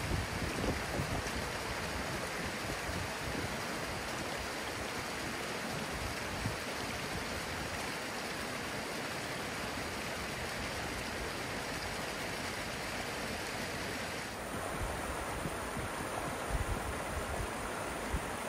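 Snowmelt creek running steadily over rocks, a constant rushing of water.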